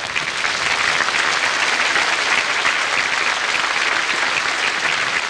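A large crowd applauding: dense, steady clapping.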